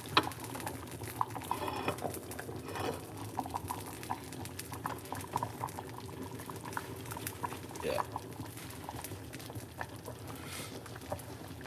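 Soup bubbling in a metal pot on a hot plate under a loosely set lid, with many small pops and ticks. Just after the start the metal lid clinks down onto the pot.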